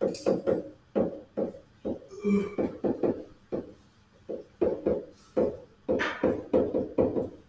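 Uneven tapping: a run of short knocks, about three a second.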